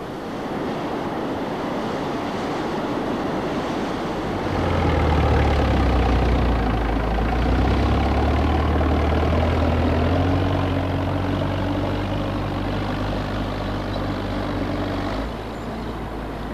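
Heavy machinery engine running steadily, louder and working harder from about four seconds in until near the end, over a steady rushing hiss.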